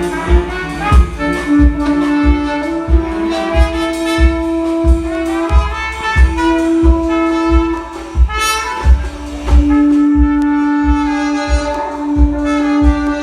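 Instrumental music: a saxophone-like horn melody of held notes over a steady low drum beat.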